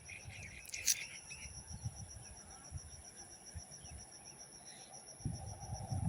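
Insects, likely crickets, chirring steadily in a rapid, high-pitched pulsing trill, with a few short bird chirps and a click about a second in. A low rumbling noise rises near the end.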